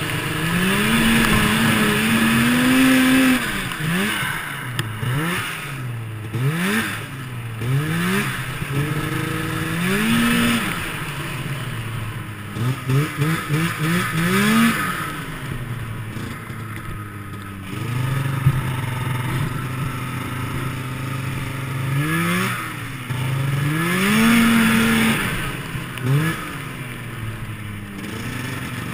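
1996 Yamaha V-Max 600 snowmobile's two-stroke engine revving up and easing off again and again as the sled runs over snow, with a quick run of throttle blips about halfway and a steadier, lower stretch a little after. Hiss and clatter from the studded track and the wind run underneath.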